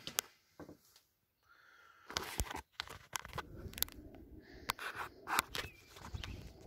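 Handling noise of a phone being moved about: rubbing, scraping and sharp clicks, over a low rumble that starts about two seconds in. There is no gunshot.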